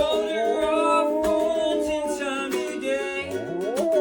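Music: a sustained, held melody line over plucked-string backing, with a few notes sliding upward near the end.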